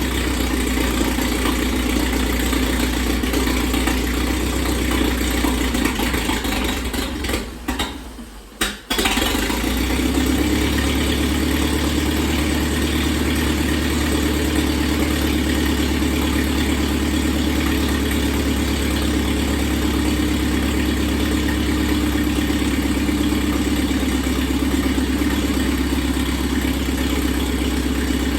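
A 1938 Massey Harris Pacemaker tractor engine running steadily at idle. The sound drops out briefly about a quarter of the way in, then carries on as before. The owner suspects the engine may not be firing on all cylinders because of poor plug leads.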